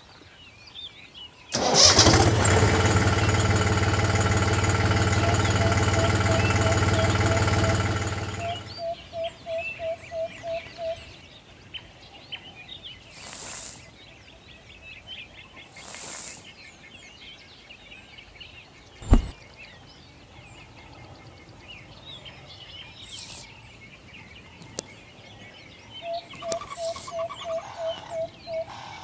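A small engine or motor starts abruptly and runs at a steady pitch for about seven seconds, then cuts off. Afterwards a quick run of short repeated chirps comes twice, with a single sharp click in between.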